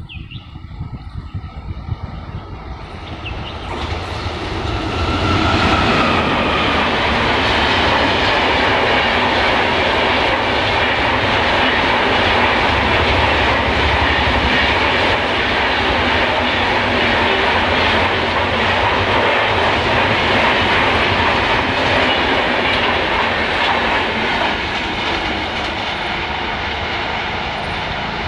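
An express train of LHB passenger coaches approaches and passes close by at speed. Its wheel and track noise builds over the first few seconds, holds as a steady loud run with clickety-clack from the coaches, and eases a little near the end as the train draws away.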